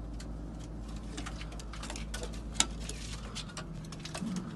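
A run of irregular light clicks and taps, one sharper tap about two and a half seconds in, over a low steady hum that stops about three and a half seconds in.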